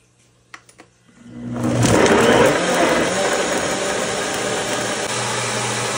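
Nutribullet countertop blender started on high after a couple of light clicks: the motor spins up about a second in, is loudest as it chops the chunks of tomato, garlic and dried chile in water, then runs steadily as the mix turns to a smooth sauce.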